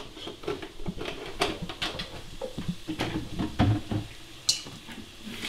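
Scattered small knocks and clinks of a plastic vinegar jug and a stainless steel bowl being handled at a kitchen sink, with a brief sharp high sound near the end.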